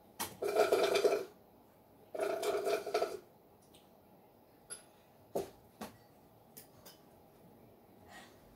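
A person making two drawn-out wordless vocal sounds, each about a second long and about two seconds apart, followed by a few faint clicks.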